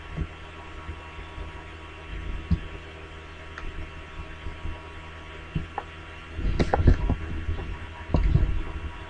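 Steady electrical hum from the recording setup, with a few low thumps and sharp clicks in the second half.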